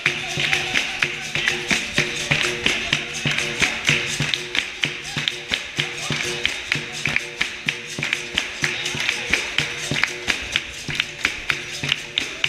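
Music with a fast, steady beat of sharp hand claps, about three or four a second, over a held sung or played line.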